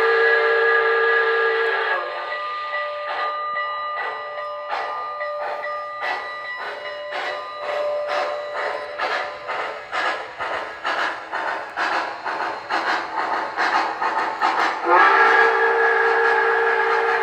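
Steam sounds from the speaker of an MTH Premier Pennsylvania S-1 Duplex model locomotive: a chime whistle ending about two seconds in, then steam chuffs that come steadily faster, and the whistle sounding again near the end.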